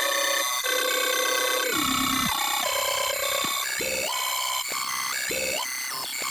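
Synthesized sci-fi computer data-processing sound: a Serum 2 wavetable synth run through a frequency shifter and Soundtoys Crystallizer, making stacked bright electronic tones that step in pitch. About two seconds in it turns into repeated quick swoops down and up in pitch, like alert signals.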